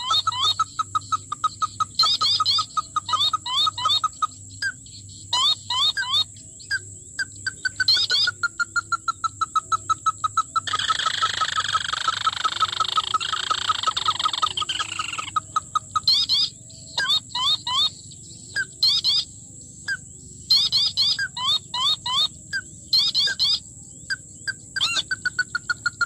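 Ruddy-breasted crake calls played as a lure from a small speaker: quick runs of short, evenly repeated clucking notes in bursts, with a longer, denser stretch of calling from about 11 to 15 seconds in.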